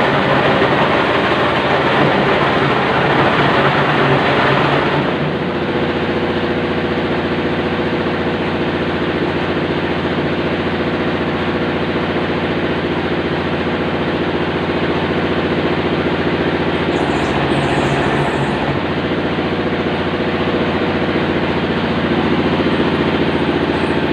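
Bowl-type food grinder running steadily while it grinds sempol dough, a loud machine drone with a few steady tones. It eases slightly about five seconds in.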